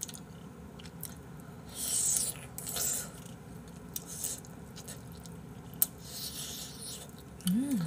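Close-miked eating sounds of a person chewing pieces of braised spicy chicken (dakbokkeumtang), with two short hissy noises, a single sharp click and a brief hummed 'mm' near the end.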